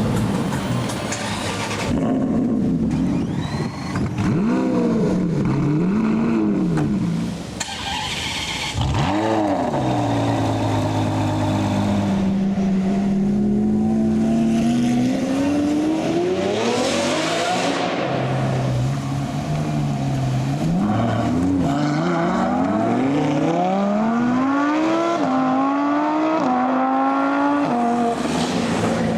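Supercar engines revving and accelerating hard. A few quick throttle blips come first, then longer rising pulls, with a series of upshifts near the end where the pitch climbs and drops at each gear change.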